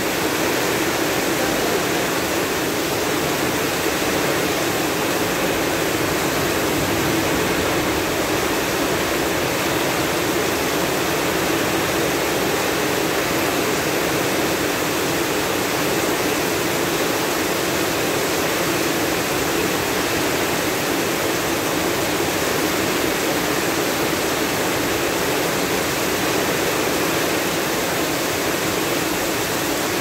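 Heavy rain pouring down steadily onto a street, an even, unbroken rush.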